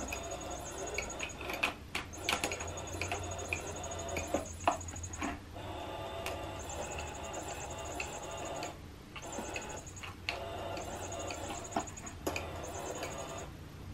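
Battery-powered electronic cat toy's motor whirring as it moves its lure around inside the plastic housing. There are a few sharp clicks, and the motor stops briefly several times.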